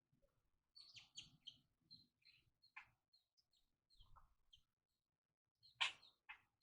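Faint chirping of a flock of small birds: many short, high notes in quick, irregular succession, with one louder, sharper sound about six seconds in.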